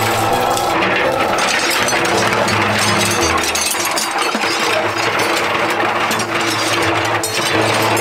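Small electric drum mixer turning with old steel horseshoes and soapy water inside, the shoes rattling and clanking against the drum in a busy, continuous clatter.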